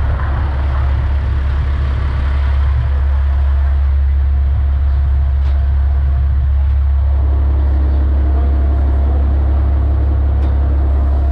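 A large engine running with a loud, steady, deep drone and a haze of noise over it.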